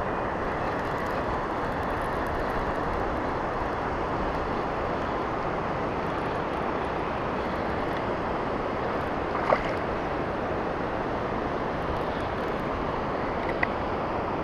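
Steady rushing of wind and water on the microphone, with two short sharp clicks in the second half.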